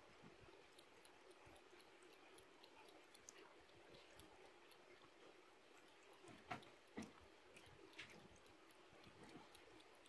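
A cat lapping water: faint, quick wet tongue flicks, with a few louder clicks in the second half.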